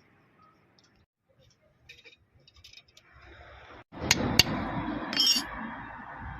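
Metal tool and engine parts clinking: faint scattered clicks at first, then after about four seconds a louder stretch with two sharp metallic clinks close together and a brief scraping hiss.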